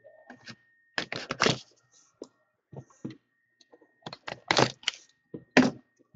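A cardboard trading-card box being unwrapped and handled by hand: its wrapper rustles, and sharp clicks and taps come in short clusters, about a second in and again around four to five and a half seconds.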